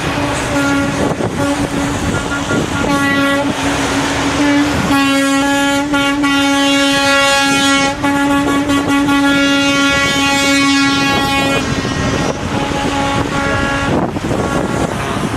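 Truck air horns blasting over running engines. There are a few short toots, then one long multi-tone horn blast lasting about six seconds in the middle.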